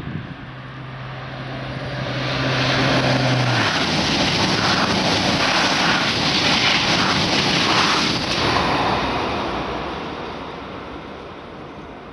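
Double-deck TGV high-speed train passing at speed: a rush of air and rail noise swells over the first few seconds, holds loud for about five seconds, then fades away. A low steady hum sounds during the approach and stops about three and a half seconds in.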